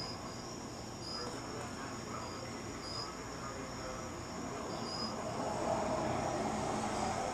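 Night insects, crickets, trilling steadily, with a short chirp repeating every second or two. A broad low rushing noise swells louder about five seconds in.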